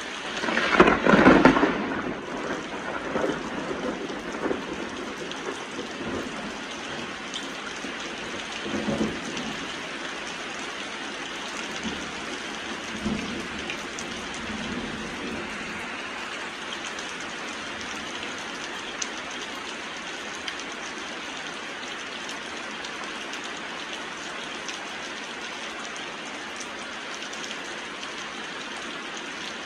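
Heavy rain falling steadily, with a loud sudden thunderclap about a second in and a few lower rumbles of thunder trailing off over the next fifteen seconds or so.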